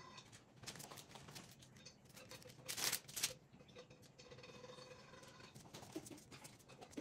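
Faint rustling and soft taps of hands working sourdough bagel dough and setting it down on paper, with a couple of louder rustles about three seconds in, over a faint steady hum.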